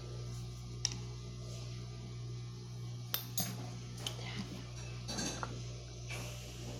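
Scattered light clinks and taps of utensils and containers being handled, a few sharp ticks spread over several seconds, over a steady low hum.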